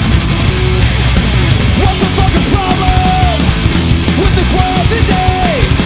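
Loud heavy rock music, with a melody line of held, bending notes coming in about two seconds in.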